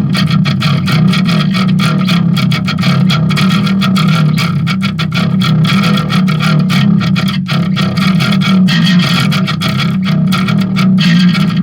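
Distorted electric bass playing a fast, unbroken run of picked notes.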